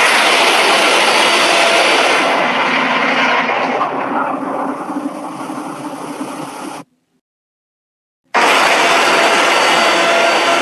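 Two loud, harsh, noisy giant-monster sound effects from a mechanical kaiju: the first lasts about seven seconds, its hiss dying away after a couple of seconds, and a second starts abruptly after about a second and a half of silence.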